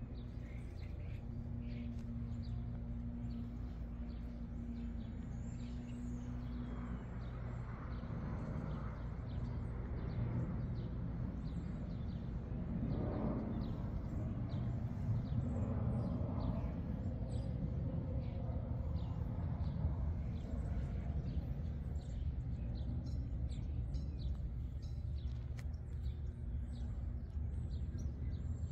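Outdoor ambience: small birds chirping over a steady low rumble, with a low steady hum for the first several seconds.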